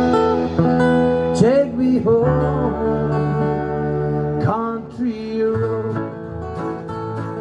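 Live acoustic rock band: an acoustic guitar strummed over sustained keyboard chords, with a voice singing.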